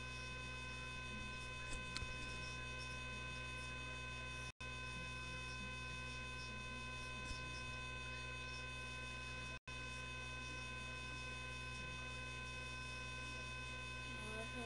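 Steady electrical mains hum with several constant whining tones over a low hiss. The TV programme's sound is not heard, and the signal drops out completely for an instant about every five seconds.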